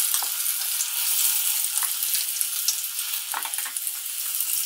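Urad-and-moong dal vadas deep-frying in hot oil: a steady high sizzle, with a few short clicks through it.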